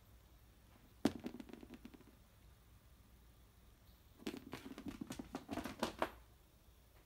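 A cat batting a small rubber Kinkeshi figure about on a wooden floor: a sharp knock about a second in with a quick run of ticks, then a longer flurry of taps and skittering clicks as the figure and the cat's paws hit the floor.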